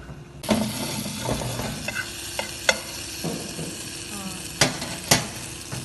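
Egg omelette sizzling in a non-stick frying pan, with a spatula scraping and knocking against the pan several times, the two loudest knocks near the end.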